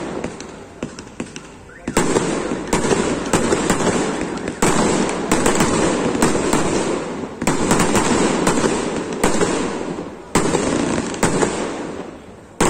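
Aerial fireworks bursting overhead: a string of sharp, loud bangs with rapid crackling between them, the biggest bursts coming about two seconds in, near the middle and about ten seconds in.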